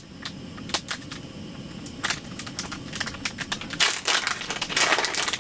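Small packet of crushed chili peppers crinkling and crackling as fingers work it open, the crackles sparse at first and getting much busier about four seconds in.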